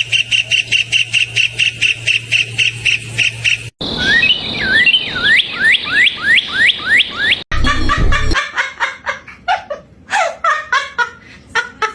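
Birds calling in three separate clips cut together. First comes a rapid, even run of high notes, about five a second, over a low steady hum. Then a series of quick rising whistled notes. Then a looser run of varied notes.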